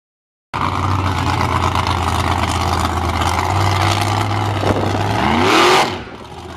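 Monster truck engine running loud and rough after a brief silence. About five seconds in it revs up with a rising pitch as the truck lifts its front wheels, then drops off sharply.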